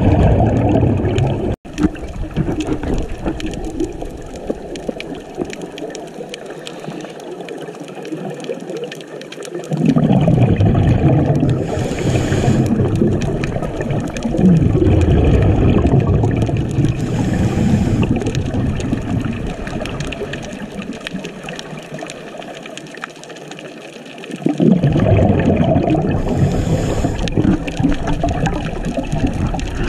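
Underwater sound of scuba regulator exhaust bubbles: long, rumbling, gurgling surges of exhaled bubbles every several seconds, with quieter underwater hiss between breaths.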